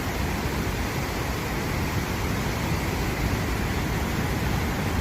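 Fast-flowing floodwater rushing past in a steady, dense noise with a heavy low rumble.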